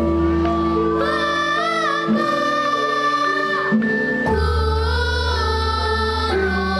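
A girls' children's choir singing a Javanese-language song, holding long notes over an instrumental backing with a steady bass.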